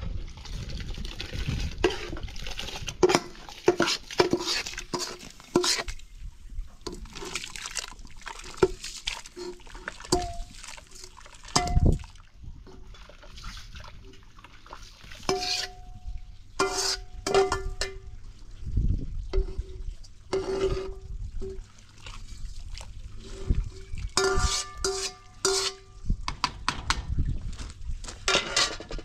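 Water splashing and sloshing, with many irregular clinks and knocks of kitchenware, some of them ringing briefly.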